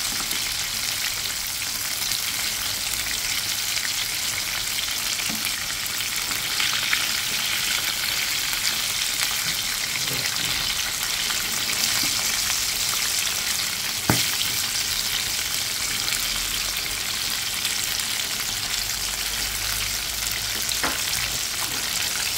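Cornflour-coated chicken pieces deep-frying in hot oil in a pan, a steady sizzle, with one sharp click midway through.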